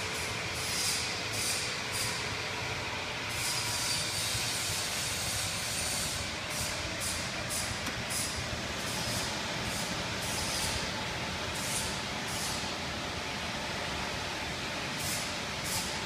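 Conveyor dryer oven for screen and digital prints running: a steady whoosh of air from its blowers, with short high hisses coming and going every second or so.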